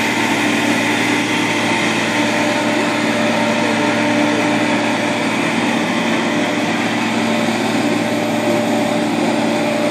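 An engine running steadily at an even speed, a constant hum with a few held tones.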